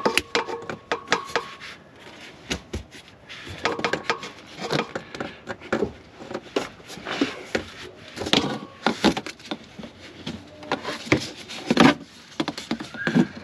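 Corrugated plastic hoses being handled and shifted against a van's underbody: irregular clicks, knocks and rubbing.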